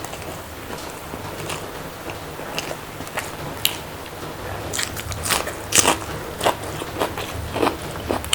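A person biting and chewing crunchy food: short crisp crunches and crackles, growing louder and more frequent about halfway through.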